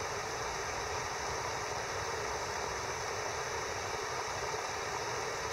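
Steady, even hiss of a TOAKS titanium capillary alcohol burner burning methanol under a pot of water that is just short of the boil.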